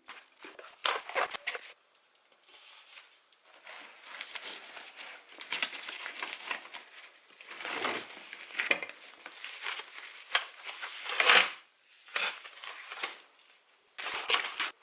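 Handling noise from camping gear being unpacked: irregular crinkling and rustling, like plastic bags or packaging, with a few light knocks, loudest about eleven seconds in.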